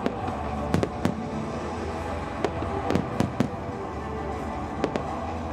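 Fireworks display: aerial shells bursting in a string of about eight sharp bangs, unevenly spaced, over steady background music.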